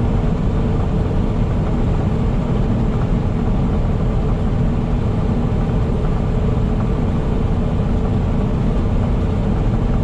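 Semi truck driving at road speed: a steady, even drone of engine and tyre noise.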